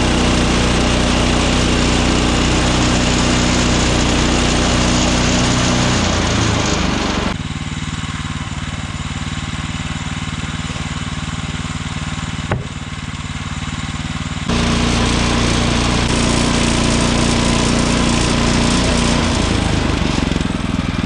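Woodland Mills HM126 portable band sawmill running steadily, its gas engine under load as the band blade saws through a maple log. About a third of the way in the sound drops quieter and duller for several seconds, with a single sharp click. It then returns to full level and cuts off suddenly at the very end.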